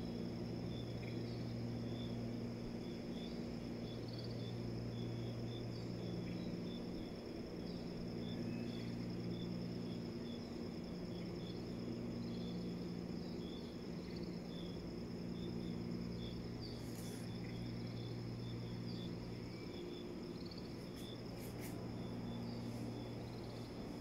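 Crickets chirring steadily, with short chirps scattered over them, above a steady low hum.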